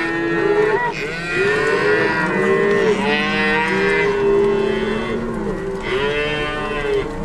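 A herd of cattle being driven along, many cows and calves mooing and bawling at once in overlapping calls, a constant chorus of low and higher-pitched voices.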